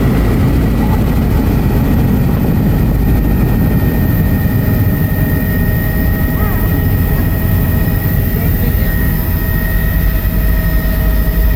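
Helicopter in flight heard from inside the cabin: a loud, steady rumble of rotor and engine with a steady high whine over it.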